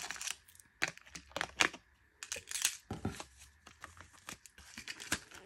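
Thin clear plastic blister packaging being handled, crinkling and clicking in short irregular bursts.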